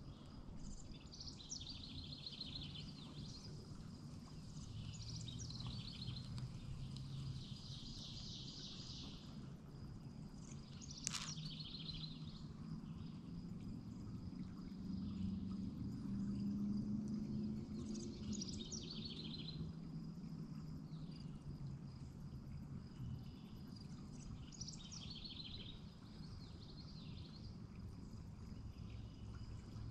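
A songbird singing short, rapid trilled phrases that repeat every few seconds, over a low steady rumble of outdoor background noise. A single sharp click comes about eleven seconds in.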